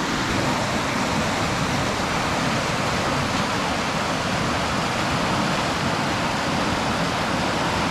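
Waterfall rushing over rock: a steady, unbroken wash of falling water.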